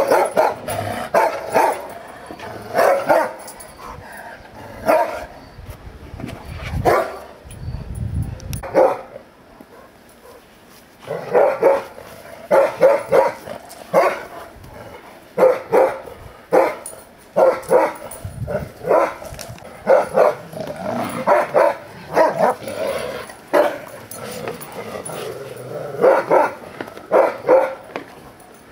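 Dogs barking in short repeated bursts during rough play-fighting, easing off for a few seconds early on and then coming thick and fast.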